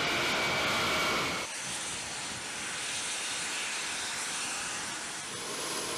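Turbofan engines of a Lockheed C-5 Galaxy running loudly, a rushing roar with a steady whine, as the aircraft rolls down the runway. About a second and a half in it cuts off abruptly to a quieter, steady rushing hiss.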